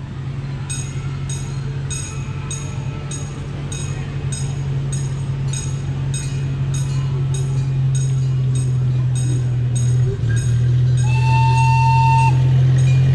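Miniature replica steam locomotive approaching, its bell ringing steadily about one and a half strokes a second over a low steady hum that grows louder as it nears, then one toot of its whistle, just over a second long, near the end.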